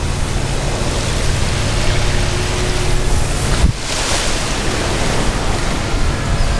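Wind buffeting the microphone: a heavy low rumble under a broad rushing noise, dipping briefly near the middle.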